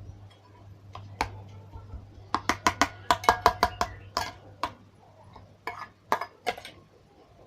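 A spoon clinking and knocking against a bowl while stirring a thick homemade slime mixture: scattered clicks, then a quick run of about five a second in the middle, then slower again.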